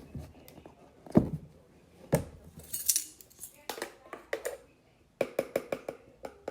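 Measuring spoon clinking and knocking against the flour container and cup while flour is scooped, ending in a quick run of about six light taps.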